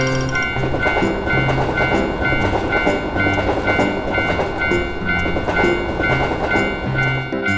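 Japanese railroad crossing bell clanging steadily, a little over twice a second, while a train rumbles through the crossing; the train noise drops away near the end. A simple music track plays underneath.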